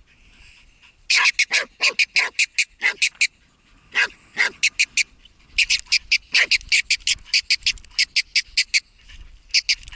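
Hunting laika barking at a hole in the ground, in quick runs of short, sharp, high barks, several a second, with brief pauses between the runs.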